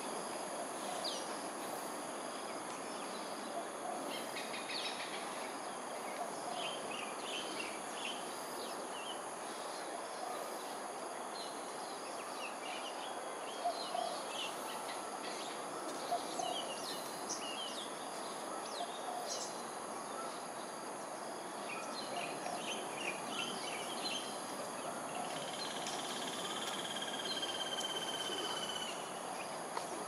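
Riverside ambience: a steady background hiss with scattered short bird chirps and a constant high-pitched insect drone. Near the end a longer, drawn-out call runs for a few seconds.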